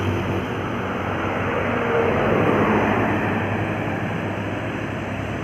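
Road traffic: a vehicle passes, its tyre and engine noise swelling and peaking about two to three seconds in, over a steady low engine hum.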